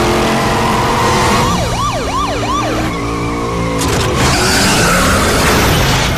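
Film car-chase sound effects: a car engine running hard, a siren giving three quick rising-and-falling yelps about two seconds in, then tyres screeching from about four seconds in.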